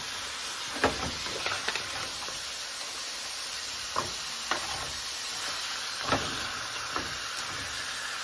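Pork backbone pieces cooking in a pan with a steady sizzle, while a wooden spoon stirs them and knocks against the pan several times.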